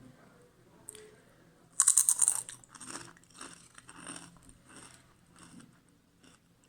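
Someone biting into crunchy fried potatoes and chewing them: one loud crunching bite about two seconds in, then a string of quieter chewing crunches that fade away.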